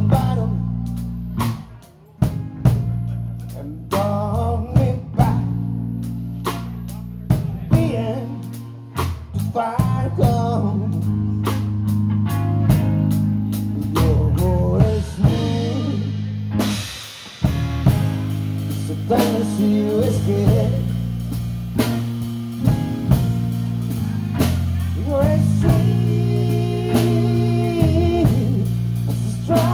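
Live band music: a drum kit with sharp hits over electric guitar and a steady bass line.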